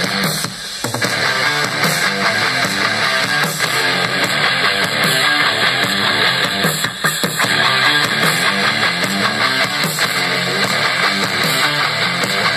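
A rock song with strummed electric guitar, played through a small 6 W Bluetooth speaker (Klip Xtreme Nitro), with little deep bass.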